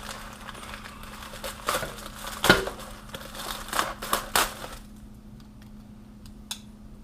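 Packaging being opened by hand: crinkling and tearing, with many sharp crackles for the first four and a half seconds, then a few faint clicks.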